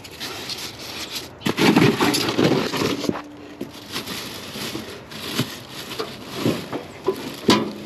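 Cardboard box and plastic packing wrap rustling, crackling and scraping as they are handled, with a few sharp knocks; loudest from about one and a half to three seconds in.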